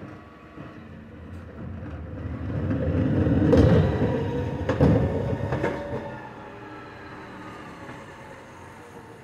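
Refuse lorry's hydraulic bin lift tipping a wheelie bin: a mechanical whine that rises and falls, with three sharp knocks in the middle as the bin is emptied, then fading away.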